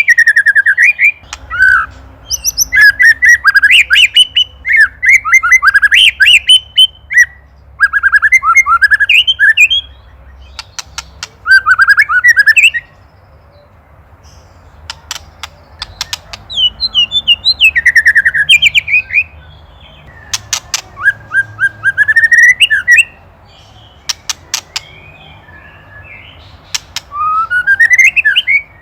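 White-rumped shama singing loud, varied whistled phrases and trills in bursts with short pauses, broken several times by quick series of sharp clicks: the agitated 'ketrekan' rattle it gives toward a predator.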